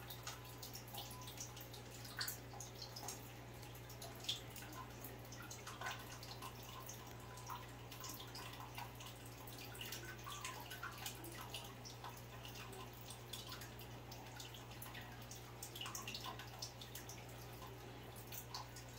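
Faint, irregular ticks and crackles of an opossum foraging in dry grass, over a steady low hum.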